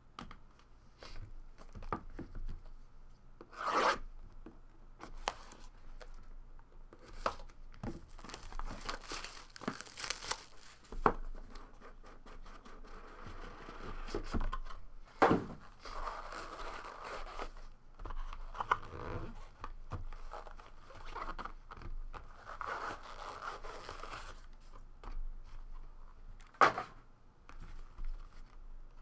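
Plastic shrink wrap being torn and crinkled off a trading-card hobby box, in long crackly bouts through the middle. Sharp knocks and scrapes come from the cardboard box and its lid as they are handled.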